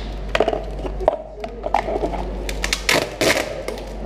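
Plastic party cups and clear tape crackling and rustling close to the microphone, in a run of short, sharp crackles with a louder cluster near the end.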